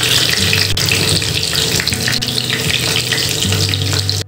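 Crumb-coated chicken fillets shallow-frying in hot oil in a pan, a steady dense sizzle.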